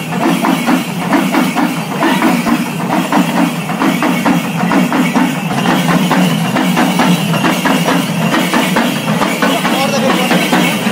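Background music: an instrumental stretch of a Telugu devotional song to the goddess Durga, driven by a fast, steady percussion beat.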